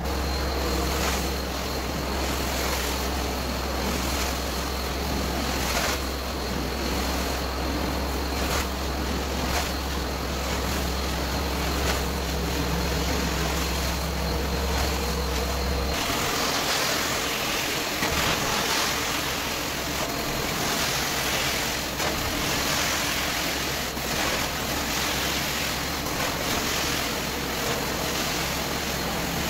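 Carpet extractor wand and vacuum hose running, a steady rush of suction as hot-water extraction is done on carpet. A low hum and a faint high whine drop out about halfway through while the rushing continues.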